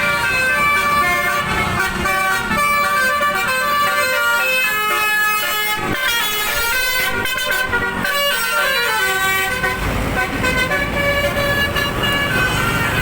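A bus's basuri 'telolet' multi-tone horn playing a quick tune of stepping notes, over the low sound of the bus engine.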